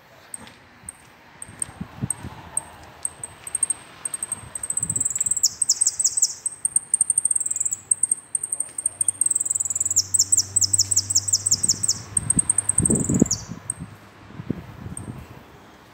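Caged saffron finch (jilguero) singing. It starts with a string of high, thin repeated notes, then sings a long, loud song with two fast trills that stops abruptly about 13 seconds in, followed by a few single chips.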